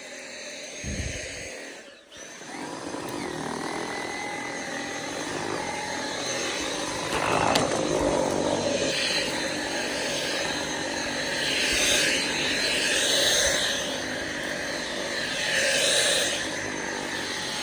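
Dyson V7 Absolute cordless stick vacuum running: a steady motor whine with rushing air that starts about two seconds in and swells louder several times.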